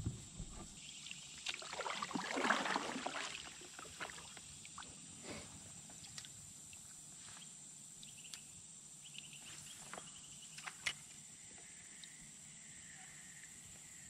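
Quiet handling sounds in a fishing kayak: a brief rustle of rod, line and gear a couple of seconds in, then scattered light knocks and clicks. Under them runs a faint steady insect drone.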